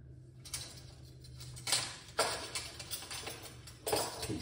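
Kitchen items clattering as they are handled: two sharp knocks close together about two seconds in and another near the end, with smaller clicks between them.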